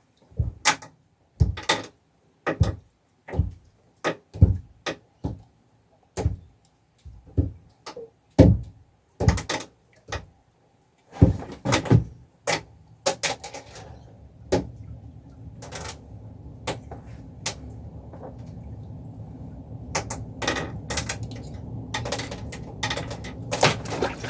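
A series of sharp knocks and thuds, one every second or so, followed from about halfway through by a low steady hum that slowly grows louder, with a few more knocks over it.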